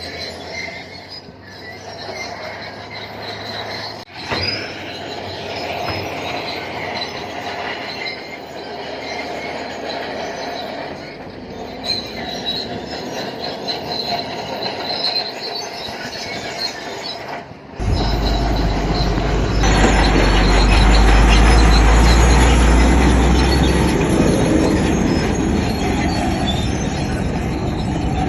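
Bulldozer at work, its diesel engine running while the steel tracks squeal and grind as it moves. About 18 seconds in, the sound changes suddenly to a louder, heavier stretch of engine and track noise.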